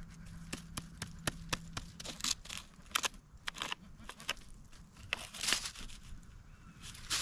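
Dry leaves and twigs crackling and snapping underfoot in irregular crunches, as someone walks through woodland brush. A faint steady low hum underneath stops about two seconds in.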